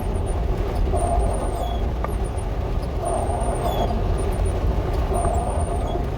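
Dodge A108 van driving on a rough, muddy road, heard from inside the cab: a steady low engine and road rumble. Over it, the windshield wipers sweep with a swish and a high squeak about every two seconds.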